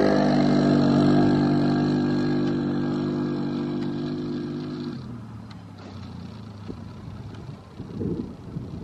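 Yamaha Grizzly 700 ATV's single-cylinder engine running at steady high revs as it pulls away, getting fainter with distance. About five seconds in the engine note drops suddenly to a lower, quieter note that fades out.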